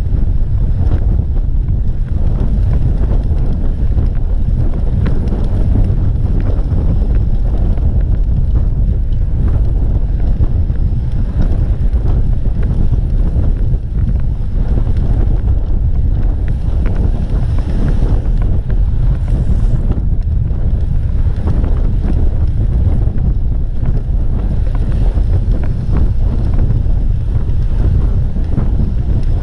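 Wind buffeting a camera microphone on a moving road bike: a loud, steady low rumble.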